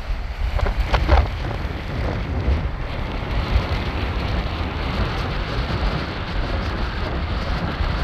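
Strong wind buffeting the microphone: a heavy low rumble under a steady rushing hiss of wind and choppy water, with a burst of louder rustling about a second in.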